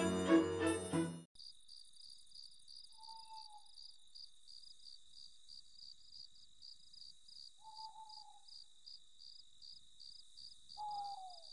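Orchestral string music that ends about a second in, then faint crickets chirping in a steady rhythm of about three chirps a second. A short, slightly falling call sounds three times, a few seconds apart, over the chirping.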